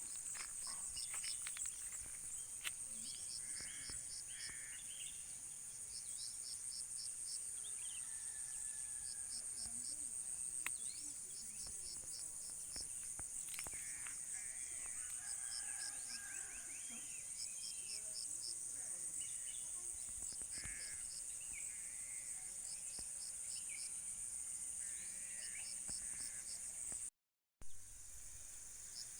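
Birds chirping and calling with many varied short whistles, over a steady high drone of insects such as crickets. A short series of quick high pulses repeats every few seconds throughout, and the sound cuts out for a moment near the end.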